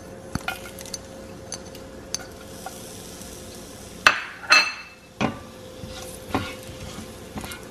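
Chopped garlic crackling faintly in hot oil in a pot, with scattered small pops. About four seconds in, a slotted spoon knocks against the pot twice and then stirs the garlic with a few more clinks.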